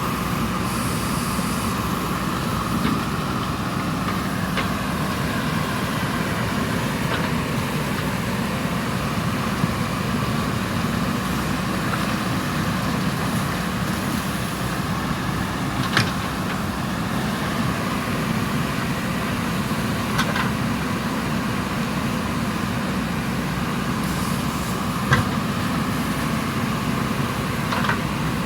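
JCB 3DX backhoe loader's diesel engine running steadily while digging, with a few sharp knocks standing out, the loudest about a quarter and most of the way through.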